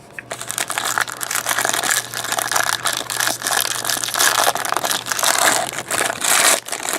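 Plastic wrapping crinkling and tearing with quick crackles, as a sealed trading-card box or pack is opened.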